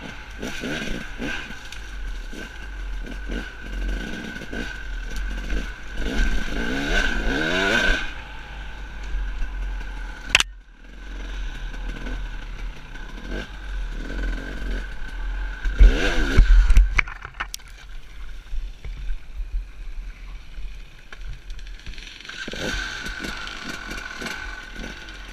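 Enduro dirt bike engine revving up and down as it is ridden over a rough dirt trail, with clatter from the bike over the bumps. A loud burst of throttle comes about two-thirds of the way through, then the engine eases off.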